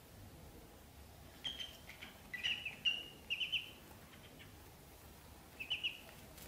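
Ducklings peeping: short high chirps in little clusters from about a second and a half to nearly four seconds in, then a quick pair near the end.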